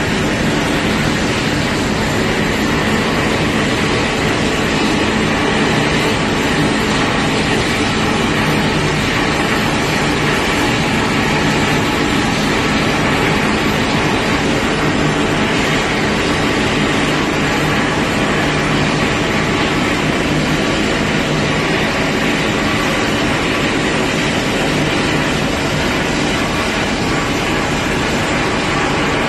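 Ship's engine running steadily as a low hum under a constant rush of wind and water noise, heard from on board a moving vessel.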